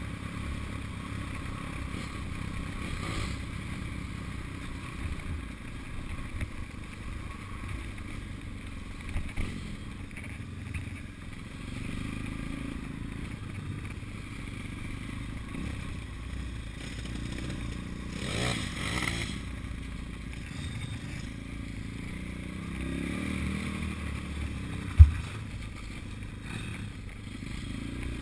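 Pit bike engine running as it rides over a rutted dirt trail, with the bike clattering over the bumps. A brief scraping noise comes about two-thirds of the way in, and a single sharp knock near the end.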